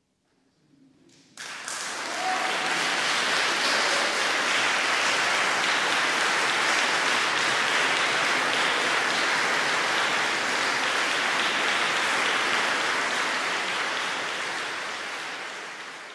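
Audience applauding: a short hush, then clapping breaks out suddenly about a second and a half in, holds steady, and fades away near the end.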